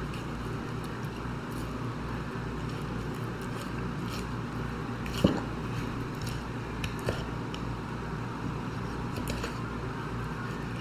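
Knife slicing raw chicken breast away from the breastbone on a plastic cutting board: faint wet squishes and a few light clicks, the sharpest about five seconds in, over a steady low hum.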